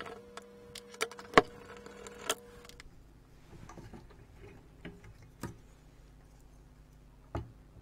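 A circuit board being unclipped and lifted out of an electronic scale's housing: a scattering of sharp clicks and light knocks of board, plastic and metal parts, the loudest about a second and a half in, then a few sparser ones.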